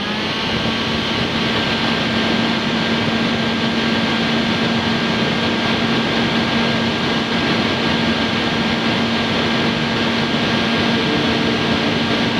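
Small electric fan of a miniature portable air conditioner running steadily: an even rush of air with a low hum and a faint high whine.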